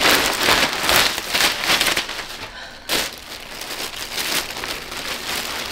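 Plastic mailer bag crinkling and rustling as it is handled, loudest in the first two seconds, with a sharp crackle about three seconds in and softer rustling after.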